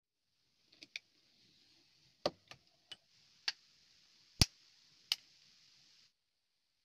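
Scattered sharp clicks and taps from handling a thin PVC sheet and a utility knife on a wooden workbench, about eight in all, the loudest a little past the middle, over a faint hiss.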